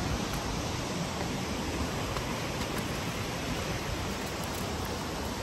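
Steady rushing of a mountain river running over boulders and small rapids.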